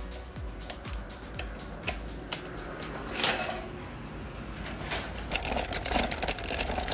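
Metal shopping cart rattling and clattering in quick, irregular clicks as it is pushed over concrete paving stones.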